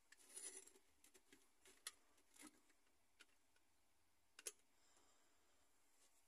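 Faint handling sounds of a small model shipping container being set down and shifted on a sand-and-gravel diorama base. A short scraping rustle at the start is followed by a few separate small clicks and taps.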